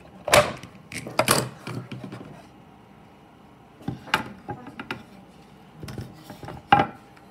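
Wooden knocks and clatter from a carved maple rifle stock and tools being handled on a wooden workbench. There is a sharp knock shortly after the start, a cluster of knocks about a second in, more around four seconds, and one sharp knock near the end.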